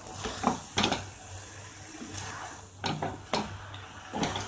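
A spatula stirring and turning a thick vegetable-and-grated-coconut mixture in a non-stick pan, with about five short knocks and scrapes against the pan at irregular moments and the soft rustle of the mixture between them.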